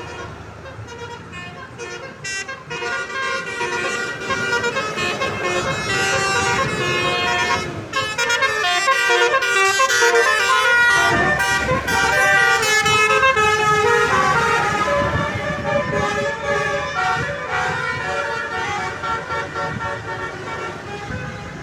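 Indonesian bus's basuri telolet horn, a set of air-horn trumpets, playing a tooting melody of changing chords. It grows louder toward the middle and fades somewhat near the end.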